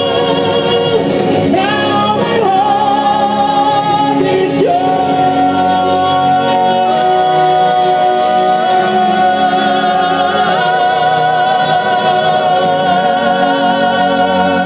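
A male tenor singing into a handheld microphone over backing music, holding a long high note with vibrato through most of the closing phrase.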